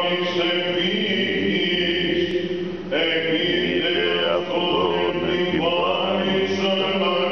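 Greek Orthodox Byzantine chant sung by male voices: a flowing, ornamented melodic line over a steady low held drone note (the ison).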